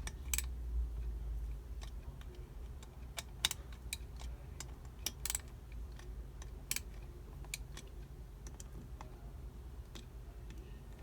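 Irregular small clicks and taps of a screwdriver and metal parts as screws on an Edelbrock 1406 carburetor are snugged down, over a low steady hum.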